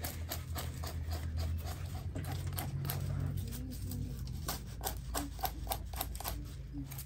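Knife scraping and cutting the hard scales and skin off a stiff sun-dried, salted fish: a rapid, irregular run of dry clicks and scrapes, over a low steady hum.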